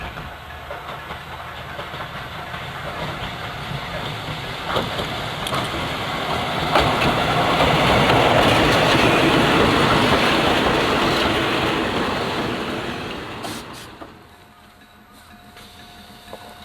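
Meitetsu Mo 510-class electric railcar running on the track, with wheel and rail noise and a few clicks over the rail joints. The noise builds to a loud peak about eight seconds in, then drops away sharply about fourteen seconds in.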